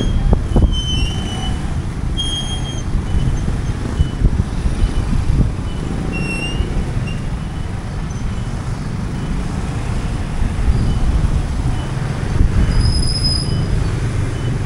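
Street noise: a steady, dense low rumble with brief high-pitched squeals scattered through it.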